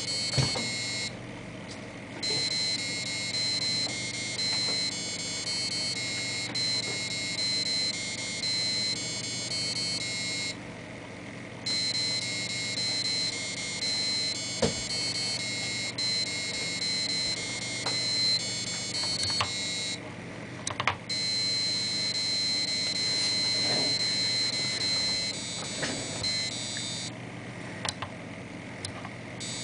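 An 8051 microcontroller playing simple children's tunes through a small buzzer: a shrill electronic beeping melody, note after note, broken by short pauses of a second or two between phrases.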